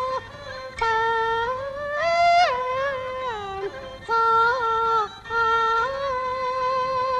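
Peking opera music: a single high melody line of held notes with slides and small wavering ornaments, broken by short pauses between phrases, from the high female voice and the jinghu fiddle that follows it.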